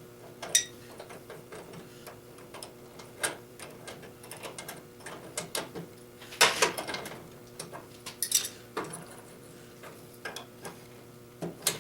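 Scattered light metallic clicks and clinks of hands working small metal parts and tools on a lawn tractor during a cable replacement, with a louder clank about six and a half seconds in and another a couple of seconds later.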